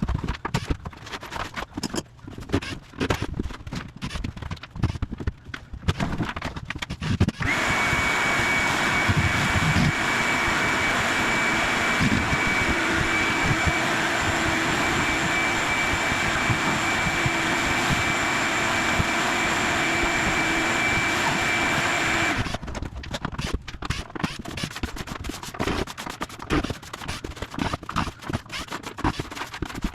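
Irregular knocking and scraping of demolition work on a tiled bathroom floor. About seven seconds in, a machine starts and runs steadily with a constant high whine for about fifteen seconds, then cuts off, and the knocking and scraping go on.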